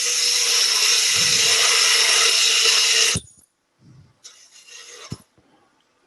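Turning tool cutting a spinning wood blank on a lathe: a steady hiss of shavings with a faint hum under it, which stops sharply about three seconds in. A short, lighter cut follows, with a click near its end.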